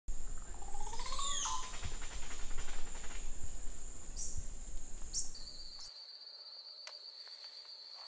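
Short whistled bird calls, a few sweeping down in pitch, over a steady high insect-like trill and a low rumble of wind on the microphone. The rumble cuts off abruptly about six seconds in, leaving only the steady high trill.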